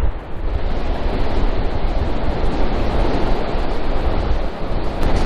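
Ocean surf breaking on the beach, a steady wash of waves, with some wind on the microphone.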